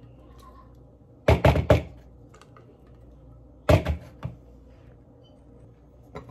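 Knocks from emptying a blender jug of thick chocolate mixture into a mixing bowl: a quick run of four knocks about a second in, and two or three more near the middle.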